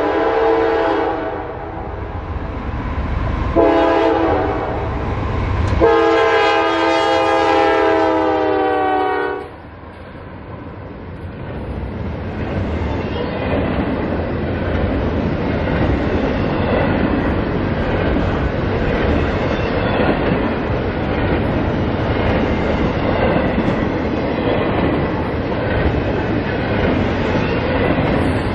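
Freight locomotive air horn sounding a chord as the train approaches: the tail of one blast, then two more, ending about nine seconds in. Then the double-stack intermodal container cars roll past, a steady rumble with the rhythmic clatter of wheels over the rail joints.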